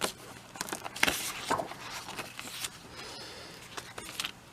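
Handling noise from packaging and papers: irregular rustles and scrapes with a few sharp clicks, the biggest burst about a second in, over a faint steady electrical hum.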